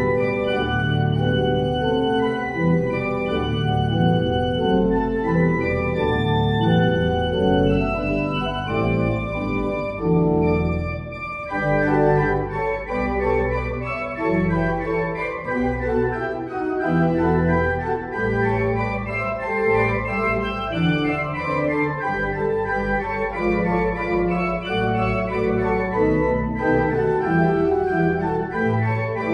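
Church organ playing music of sustained, overlapping chords, the notes changing about once a second.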